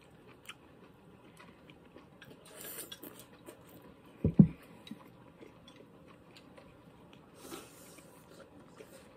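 A person chewing food with the mouth closed, with small clicks of chopsticks against a bowl. Two soft hisses come through, and there is one short, louder thump about four seconds in.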